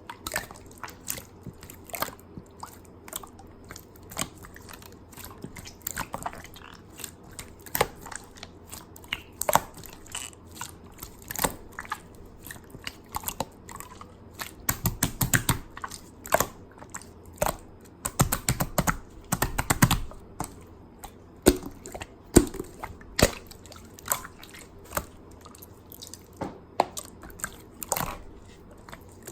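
Green clear slime being squished and pressed by hand, making a quick, irregular run of sticky pops and clicks, thickest about halfway through.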